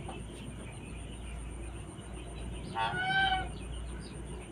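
A chicken gives one short call with a clear pitch about three seconds in.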